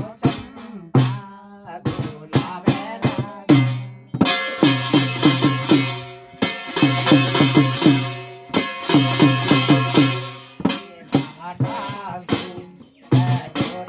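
Ritual folk drumming: a fast run of short drum strokes that bend in pitch, over a steady low tone, with a denser, brighter layer of percussion from about four seconds in until about ten seconds in.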